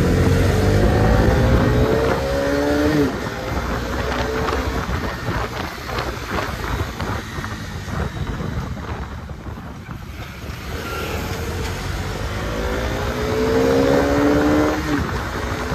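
Bajaj Dominar 250's single-cylinder engine accelerating under a rider, its pitch climbing until a gear change drops it about three seconds in. Wind rushes over the microphone through the middle, then the engine climbs again and shifts once more near the end.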